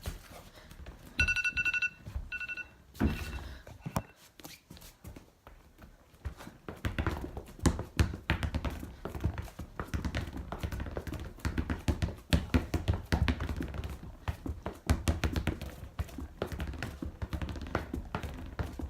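Irregular hard knocks and taps. A short ringing tone sounds twice about a second to three seconds in, and the knocks become dense and fast from about seven seconds in.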